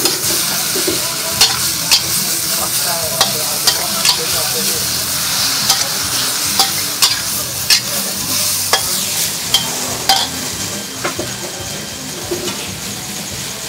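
Bok choy, carrots and pork stir-frying in a metal wok: a steady sizzle, with a metal spatula scraping and clinking against the wok at irregular intervals. The clinks thin out after about 11 seconds.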